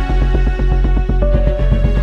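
Background music with a fast, steady pulse of short notes over a deep, continuous bass; a held note comes in a little past halfway.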